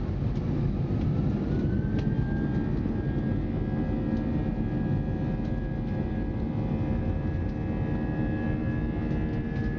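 Airbus A320 jet engines and airframe heard from inside the cabin during the takeoff roll: a loud, steady rush and rumble. A whine rises about a second in, then holds steady.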